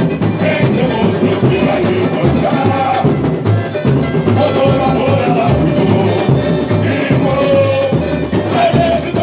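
Samba-enredo sung by male singers on microphones, amplified through a carnival sound truck, over a samba percussion beat with a steady deep drum pulse.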